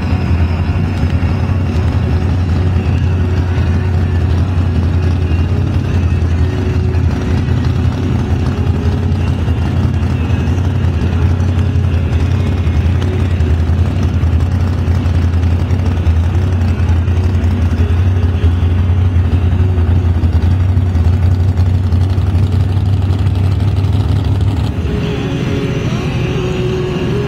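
Supercharged drag boat engine idling with a loud, steady deep drone. The deep drone drops out about 25 seconds in.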